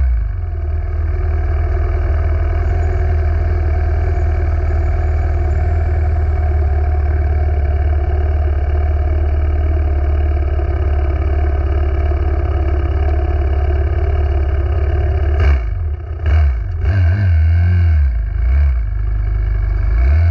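Small single-cylinder four-stroke minibike engine running at a steady pitch. In the last few seconds there are some sharp clicks and the revs change up and down.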